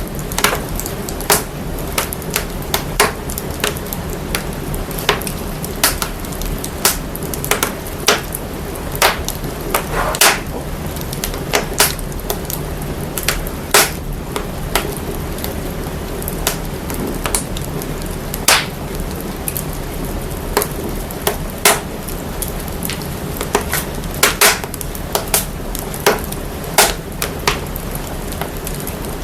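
Fire crackling: sharp, irregular pops, about one to three a second, over a steady hiss and deep rumble. The fire sound is processed to bring out its sub-bass.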